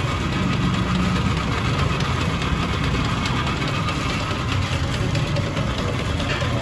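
Steady low rumble of a running engine, unchanging throughout.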